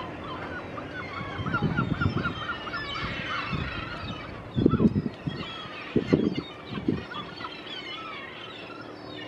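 Gulls calling: many short, overlapping cries, with a quick run of repeated notes in the first couple of seconds. Several short, loud low bursts of noise break in, the loudest about halfway through.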